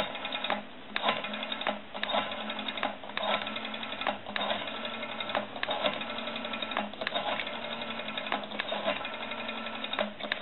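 Rotary dial of a brass elephant telephone being dialled digit after digit: sharp clicks and the whirring return of the finger wheel, with short pauses where the next digit is wound up. The dial has just been cleaned, adjusted and oiled.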